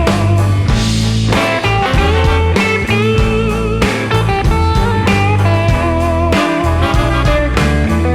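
Blues-rock music with electric guitar over a steady bass and drum beat.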